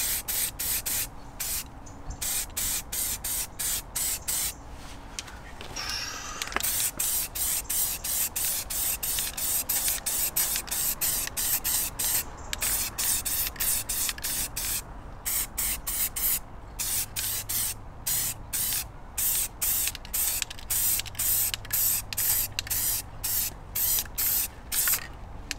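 Aerosol spray can of gloss black paint hissing in many short bursts with brief gaps, several a second, as a coat is sprayed onto a wheel.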